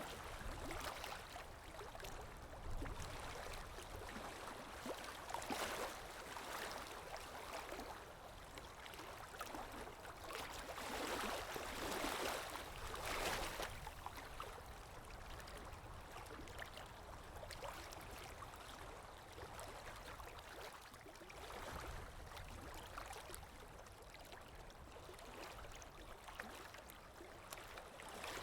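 Ambient recording of water lapping with wind: a steady wash of water and wind noise with a low rumble, swelling louder now and then, most strongly about halfway through.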